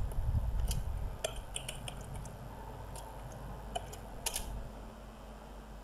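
Computer keyboard typing: about eight separate key clicks, spaced irregularly, with a low muffled rumble in the first second or so.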